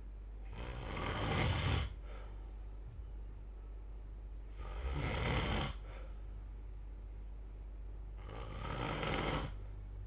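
A person snoring: three rough snores about four seconds apart, each lasting just over a second.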